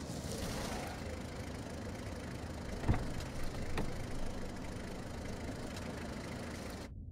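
Steady low outdoor background rumble, like street ambience, with a sharp knock about three seconds in and a fainter one about a second later. The sound turns muffled just before the end.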